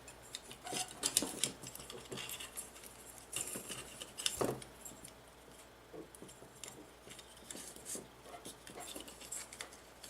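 Scattered light clicks, taps and rustling of small plastic drone parts and wiring being handled and pressed together by hand, the sharpest click about four seconds in.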